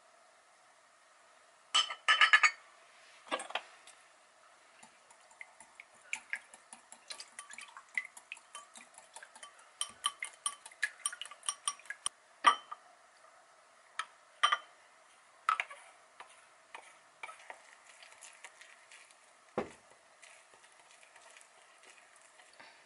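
Small hand whisk stirring egg yolks, oil and milk in a glass mixing bowl, its wires ticking quickly against the glass, with scattered louder clinks. A brief cluster of loud clinks comes about two seconds in.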